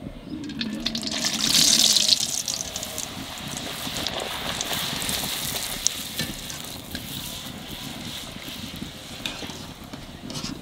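A sattu-stuffed puri deep-frying in hot oil in a kadai: a loud surge of sizzling as it goes into the oil about a second in, then a steady sizzle as it is pressed and puffs up.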